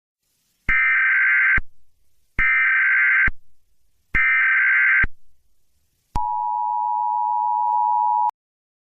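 Emergency Alert System tones: three bursts of the SAME header's data tones, each just under a second, then the steady two-tone EAS attention signal (853 and 960 Hz) for about two seconds, which cuts off suddenly.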